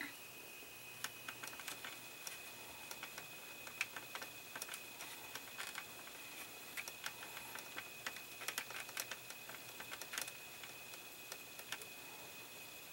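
Light, irregular clicks and taps of a metal hobby knife and fingertips working thin tubing and wires into a plastic model dashboard, a few quick taps a second in places.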